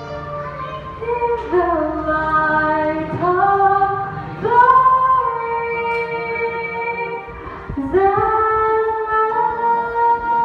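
A girl singing a slow song solo into a handheld microphone, amplified in a large hall. She holds long notes, sliding up into several of them.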